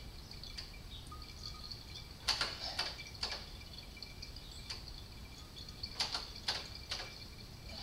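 Brake fluid dripping through the bleed hose into a catch bottle as a motorcycle's rear brake is bled: two groups of three short drips about half a second apart.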